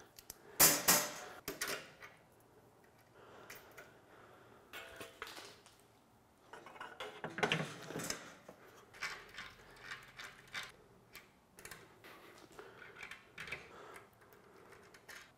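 Intermittent metal clinks, taps and clatters as metal side tables and a handle are fitted and bolted onto a kamado grill with a wrench. The loudest is a short burst of clatter about a second in.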